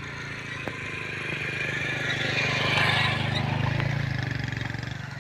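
A vehicle engine running steadily, growing louder toward the middle and then fading away, as of a vehicle passing by.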